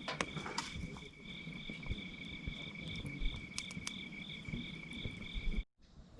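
Night insects, cricket-like, singing: one steady high trill with a second, higher note pulsing about two to three times a second, over a few faint clicks and crackles. It cuts off suddenly near the end.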